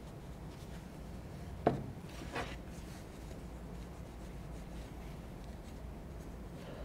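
Hands working on the bolt parts of a 12-gauge semi-automatic shotgun during cleaning: faint rubbing, one sharp knock a little under two seconds in, and a softer knock just after.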